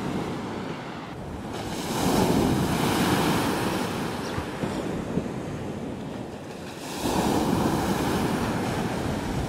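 Ocean surf breaking on a sandy beach: two waves crash and wash up, one about two seconds in and one about seven seconds in, each swelling and then fading.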